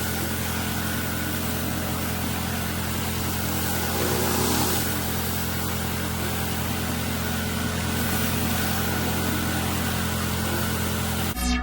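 Pressure washer running steadily: the even drone of the machine's engine and pump under the hiss of the high-pressure water jet.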